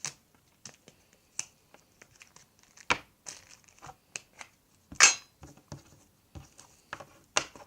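Small objects being handled and set down on a surface: irregular clicks and taps mixed with crinkling of plastic packaging, the loudest crinkle about five seconds in.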